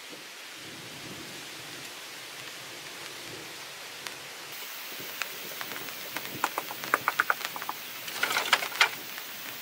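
Hollow clacks and knocks of green bamboo poles and split bamboo strips being laid and stacked, starting about halfway through and coming thickest near the end, over a steady background hiss.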